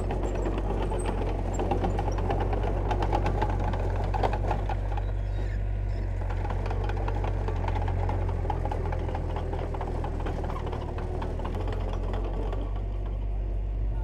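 Heavy diesel construction machinery running steadily with a deep rumble, with a rapid clatter of metal rattles that is busiest in the first few seconds.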